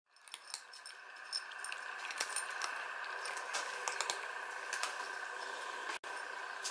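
Cats crunching dry kibble, with irregular sharp clicks of teeth and kibble against the bowls, over a steady high-pitched drone. The sound fades in at the start and drops out for an instant near the end.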